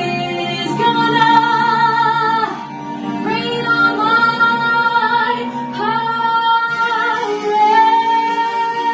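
A woman singing a show tune in long held notes, each about two to three seconds with short breaks between, over instrumental backing.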